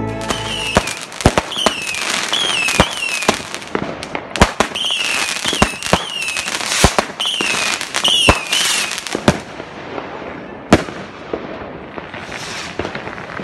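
New Year's Eve fireworks and firecrackers going off: many sharp bangs over a crackling haze, with repeated short falling whistles through the first two thirds. The bangs thin out after about ten seconds, apart from one loud bang near the end.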